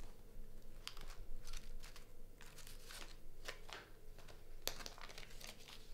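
Scratchy rustling and crinkling as a small black bag is handled, in a series of short strokes, the sharpest a little under five seconds in.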